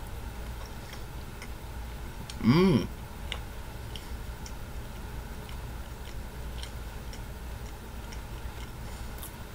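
A person chewing a mouthful of soft sandwich with the mouth closed: faint, irregular mouth clicks over a steady low hum. About two and a half seconds in, one short hummed "mm" of approval rises and falls in pitch.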